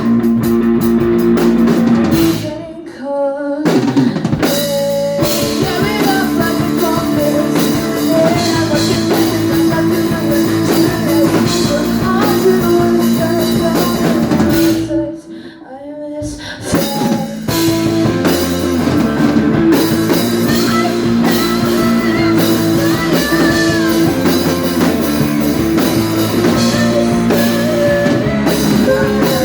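Rock band playing live: electric guitar, drum kit and singing. The band drops away briefly twice, about 3 seconds in and again about 15 seconds in, then comes back in.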